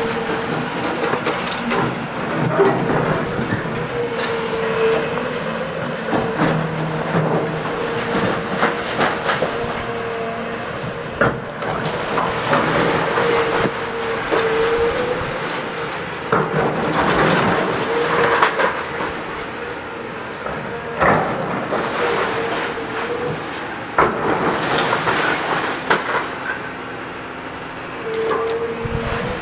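Caterpillar hydraulic excavator demolishing a building: the machine runs with a steady whine that sags in pitch now and then, while its bucket tears at the walls with repeated crashes and crunches of breaking masonry and falling rubble.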